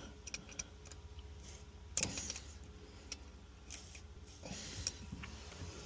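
Faint scattered ticks and scrapes of a metal pick working broken spark plug thread out of a spark plug hole in a MerCruiser 5.0 V8 cylinder head, with one sharper click about two seconds in, over a low steady hum.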